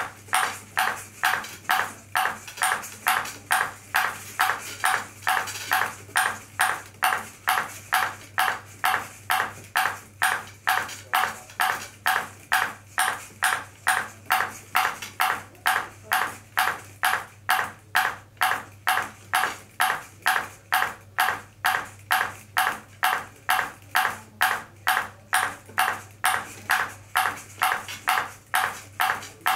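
Ping pong ball bouncing steadily on a bouncing robot's clear dish, a sharp tap about twice a second in an even rhythm, over a faint steady low hum.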